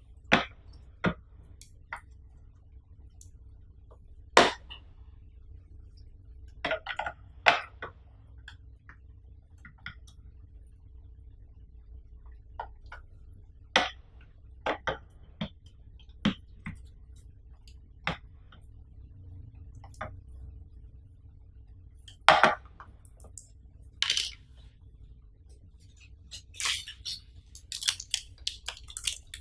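Scattered sharp clicks and knocks of hard plastic as a flat-screen LED TV's back casing and stand parts are handled. Near the end, a small plastic bag of screws crinkles and rustles in the hands.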